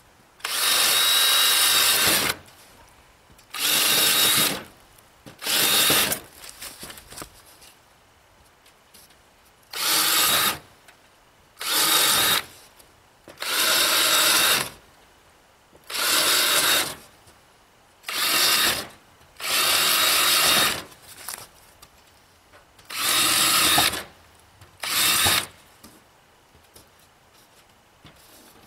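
Cordless drill running in short bursts, about eleven in all, each lasting a second or so with a steady motor whine, as it works on the wooden frame of a hutch.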